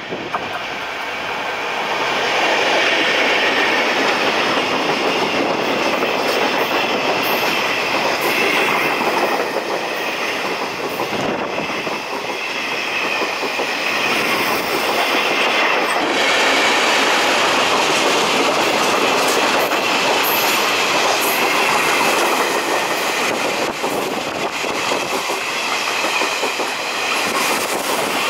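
Taiwan Railways freight train rolling through a station, its wheels running on the rails. The noise builds over the first couple of seconds and then holds steady as the train goes by.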